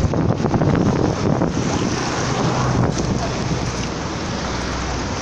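Wind buffeting the microphone on a moving bicycle, over road rumble. In the first second or so it is broken by rapid clattering as the bike rides over rough, cracked pavement, then it settles into a steady rush.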